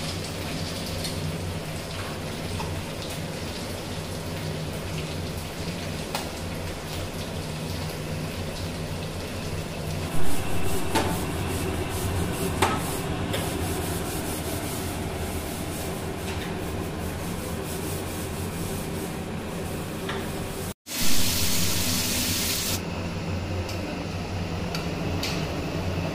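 Snail and black lentil curry bubbling in a steel kadai, with a few clinks of a metal ladle against the pan, over a steady low hum. After a sudden break about 21 seconds in, a loud hiss lasts about two seconds.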